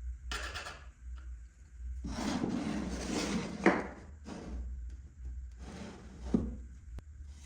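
Pieces of wood being handled and slid against each other: several rubbing scrapes, the longest lasting about two seconds, with a sharp knock near its end and another about six seconds in. A steady low hum runs underneath.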